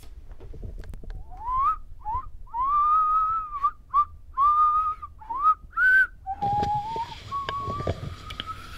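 A person whistling a short tune: about eight notes, several sliding up into pitch, a few held longer. Near the end the whistle holds a longer note as a hiss of background noise comes in under it.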